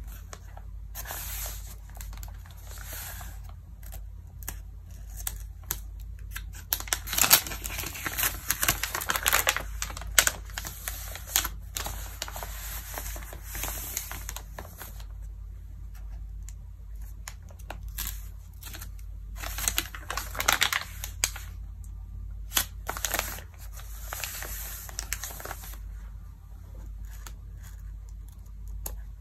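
Magazine pages rustled and crinkled under the hands, with one page turned over, in bursts of crisp paper noise separated by short pauses; the loudest stretch comes about seven to ten seconds in. A steady low hum runs underneath.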